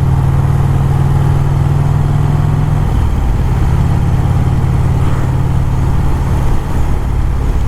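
1951 Vincent Rapide's V-twin engine running steadily under way, with a steady rush of wind and road noise. The engine note shifts slightly about three seconds in.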